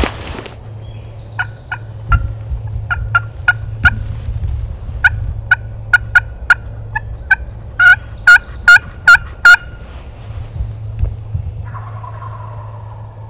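A series of turkey yelps: short, sharp, evenly pitched notes that start softly and build to five loud ones, followed about two seconds later by a fainter, lower call.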